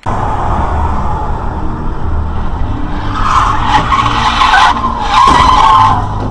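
Car tyres screeching in a skid, loudest from about three seconds in, over the steady rumble of the car and its tyres on the road.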